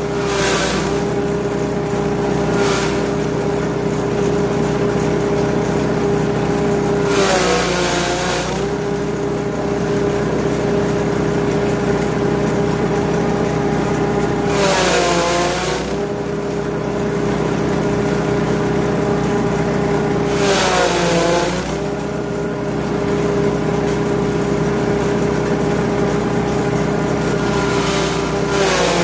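KT80 grass chopper driven by a 5.5 HP petrol engine, running at a steady speed. About four times the engine's pitch sags briefly and recovers, each time with a short burst of hissing, chopping noise: the blades taking a load of material and pulling the engine down.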